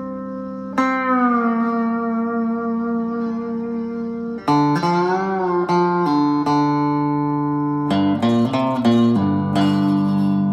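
Amplified cigar box guitar played with a slide. A note struck about a second in glides down in pitch and rings on. Midway comes a run of wavering slide notes, and near the end a few quick strums settle into ringing notes.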